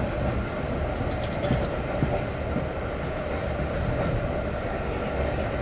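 A passenger train running along the rails, a steady rumble, with a quick run of clicks about a second in.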